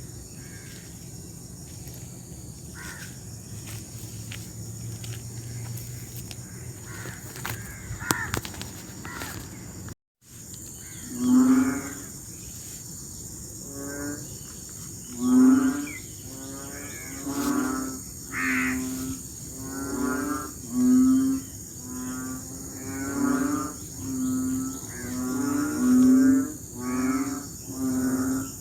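Frogs calling in the rainy season over a steady high insect chorus. After a brief cut about ten seconds in, loud, deep bellowing calls repeat about once a second, each well under a second long.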